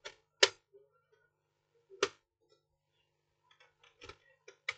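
Sharp plastic clicks and knocks from a laptop's plastic bottom case being handled and pried at: a loud click about half a second in, another at about two seconds, and a quick run of lighter clicks near the end.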